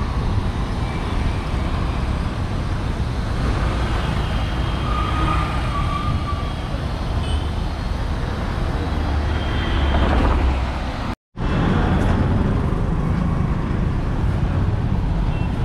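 City street traffic: motor scooters and other vehicles going past with a steady engine rumble and road noise. The sound cuts out for a moment about eleven seconds in, then the traffic noise carries on.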